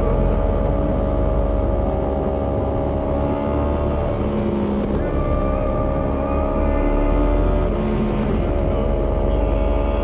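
Yamaha R15 V3's 155 cc single-cylinder engine and exhaust running under way at a steady pitch, wavering briefly around the middle and again near the end.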